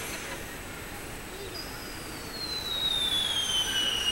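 A firework whistle from the projection-mapping show's soundtrack over loudspeakers: one long whistle starting about a second and a half in and sliding steadily down in pitch, the launch sound of a projected rocket that is climbing the building.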